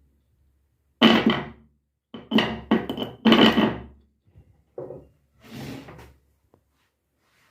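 Bursts of knocking and scraping as a bike horn and tools are handled while the horn is being taken apart, loudest between about one and four seconds in.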